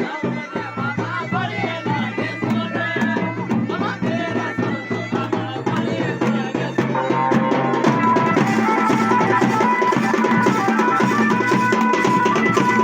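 Garhwali wedding band music: drums beating a fast, dense rhythm under a bending wind-instrument melody. About seven seconds in, the playing gets louder and fuller, with held high notes over the drumming.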